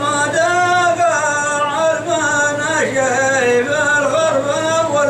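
A man singing a Hadrami dan melody without clear words: long held notes that waver and slide slowly in pitch.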